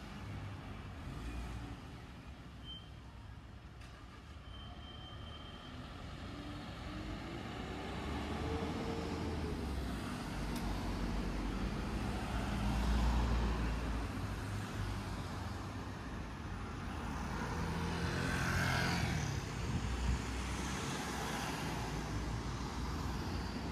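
Road traffic passing: cars and trucks going by with a steady low engine and tyre rumble, swelling as vehicles pass about halfway through and again near the end.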